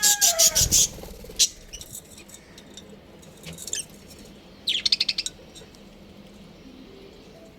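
Budgies chirping and chattering in short rapid bursts. A loud burst comes in the first second, scattered sharp chirps follow, and another quick burst of chatter comes about five seconds in.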